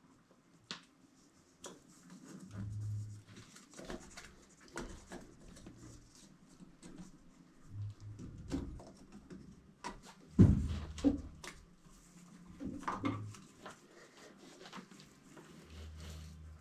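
Scattered clicks, knocks and short thumps of tools and plumbing parts being handled, with one sharp knock about ten seconds in.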